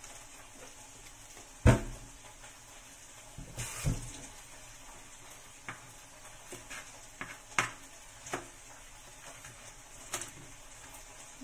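Steady sizzle of vegetables stir-frying in a pan, with several sharp knocks and clatters of kitchen things being handled; the loudest knock comes about two seconds in.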